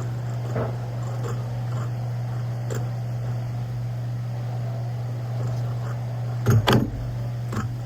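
Vehicle engine idling, a steady low hum, with two sharp knocks in quick succession about six and a half seconds in.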